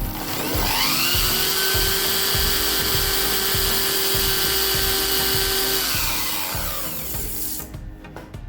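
A small high-speed electric motor, like a power drill's, spins up over about a second with a rising whine, runs steadily, then winds down about six seconds in and fades out, with music underneath.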